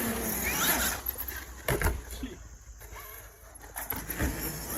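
Radio-controlled car's electric motor whining up in pitch as it is throttled. It is followed by a couple of hard knocks about two seconds in and lighter knocks near the end, as the car hits the concrete.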